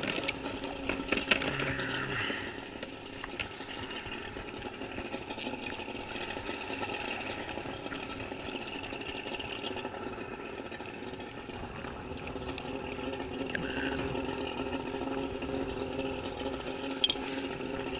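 A steady low mechanical hum over water lapping at a kayak hull, with a few light clicks from handling gear.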